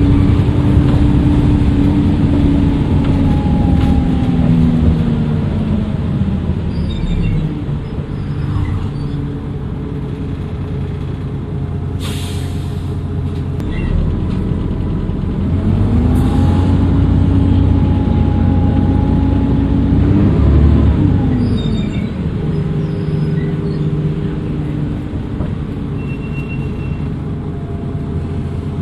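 Dennis Trident II double-decker bus engine dropping in pitch as the bus slows, then a short sharp hiss of air from the air brakes. The engine then rises in pitch with a thin turbo whistle as the bus pulls away, and eases off again later.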